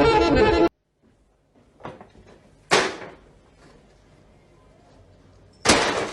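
Music cuts off abruptly, then after a quiet stretch comes a faint knock and, about a second later, a single sharp thump. A loud sudden sound starts near the end.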